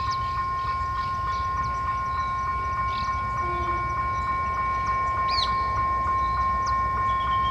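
Level-crossing warning signal ringing: a steady high tone with about three strikes a second. Under it is the low rumble of an approaching EMD GT22 diesel locomotive hauling a freight train, with a few bird chirps above.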